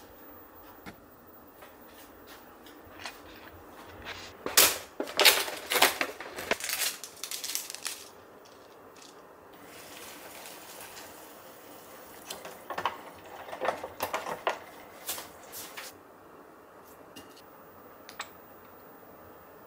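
Plastic and paper packaging of a cup ramen crinkling and tearing as it is opened, in two spells of loud crackly rustling. Between them, hot water pours into the paper cup, and near the end a squeeze bottle of sauce gives a few small clicks.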